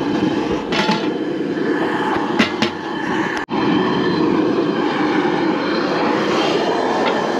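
Jet burner running steadily under a big pot of water being brought to the boil, with a few short light knocks early and again about two and a half seconds in. The sound cuts out for an instant about halfway through, then the burner carries on.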